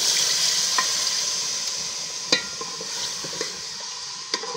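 Water poured into a sizzling chicken curry masala in an aluminium pot, setting off a loud hissing sizzle that slowly dies down. A metal ladle stirring the curry clinks sharply against the pot a few times.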